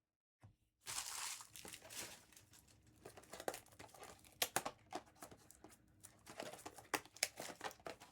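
A foil trading-card pack wrapper being torn open about a second in, followed by the wrapper crinkling and cards being handled, with sharp little snaps and clicks.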